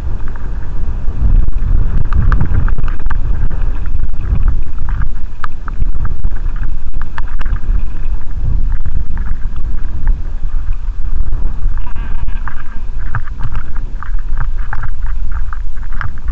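Loud wind buffeting the microphone while riding fast down a gravel track, with tyres crunching and rattling over loose stones throughout; the rattling grows denser in the last few seconds as the ride gets rougher.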